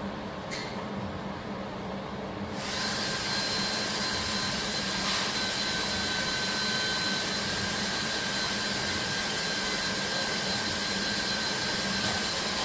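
Fiber laser welding machine running with a steady hum. About two and a half seconds in, a louder blower-like noise with a steady high whine comes on and holds, with a few faint clicks.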